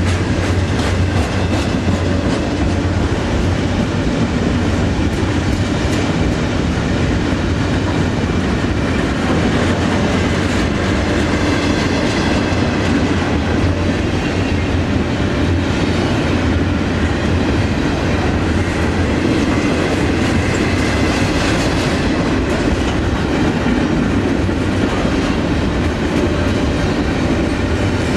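Double-stack intermodal well cars of a freight train rolling past close by: a steady, loud rumble of steel wheels on rail, with a constant patter of clicks from the wheels over the track.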